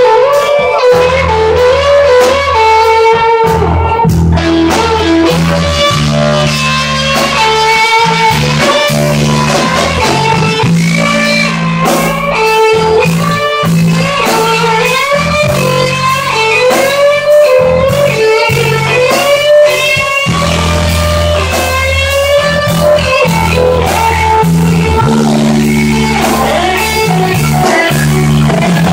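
Live rock band playing a slow ballad: electric guitars, bass guitar and drum kit, with a lead melody line of bending, held notes over a steady chord progression.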